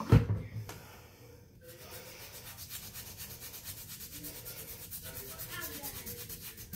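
A plastic spray bottle is set down on a stone counter with a thump. About two seconds later a brush starts scrubbing stain remover into a stained sock in quick, steady, repeated strokes.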